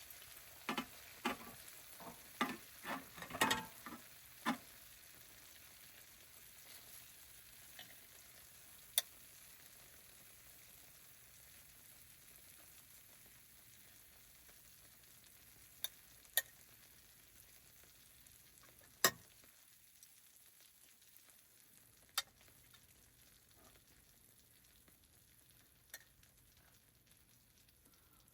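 Food frying in a pan with a faint, steady sizzle. A quick run of sharp clicks and knocks comes in the first few seconds, then single clicks now and then.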